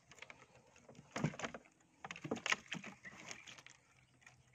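A few knocks and handling noises in a small boat while a fish trap is worked, the loudest strokes about a second in and about two and a half seconds in.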